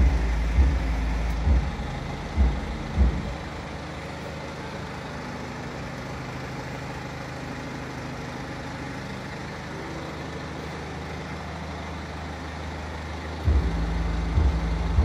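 BMW 320's four-cylinder engine idling, a steady low rumble that falls quieter about three seconds in and swells again near the end. A few dull thumps come at the start and again near the end.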